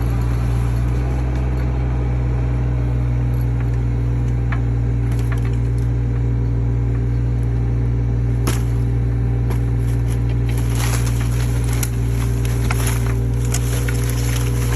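Mini excavator engine running steadily under load. A sharp crack comes about eight seconds in, and from about ten seconds on wood and brush crackle and snap as the grapple works them.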